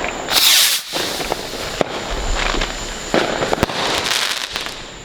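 Consumer fireworks going off: a loud burst about half a second in, followed by scattered sharp cracks and crackling.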